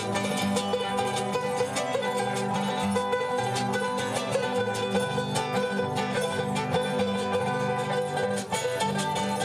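Lively Andean dance music for the qorilazo dance, led by plucked string instruments strummed in a quick, steady rhythm.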